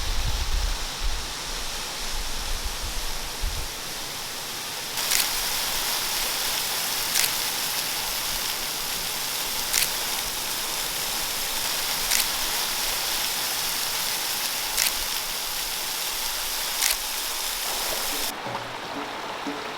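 Steady rush of flowing water from a creek or waterfall. In the middle stretch a short sharp tick comes about every two seconds. Near the end the water sound drops back.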